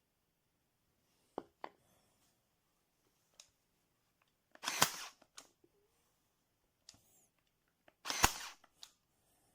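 Powertough 20V cordless brad nailer / staple gun firing twice, about three and a half seconds apart, each shot a short burst with a sharp crack. Two faint clicks come before the first shot.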